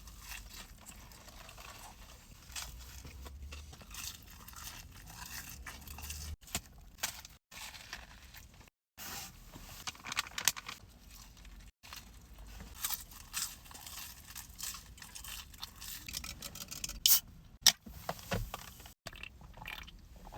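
Close-up crunching and chewing of breaded fried chicken tenders: crisp, crackly bites and wet chewing, with the two loudest crunches about three seconds before the end. The sound drops out to silence for a moment a few times.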